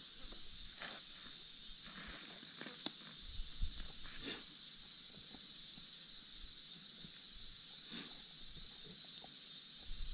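Steady high-pitched insect chorus, with a few faint rustles and knocks.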